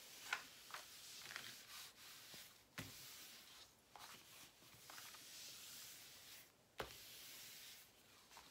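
Hands smoothing the plastic cover film back down over a diamond painting canvas: faint rubbing and rustling of film and paper, with two sharp taps, about three seconds in and again near the end.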